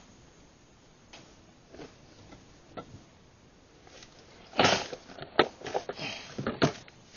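Handling clatter of a plastic lure box and fishing pliers in a small boat: a few faint ticks, then from about halfway through a run of sharp clicks and rattles as the box is opened and the lures shift inside.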